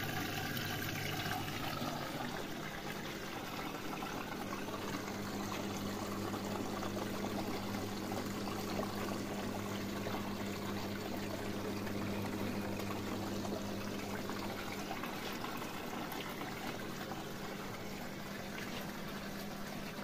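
Far washing machine with water running in it: a steady rush and trickle of water over a low, even electrical hum.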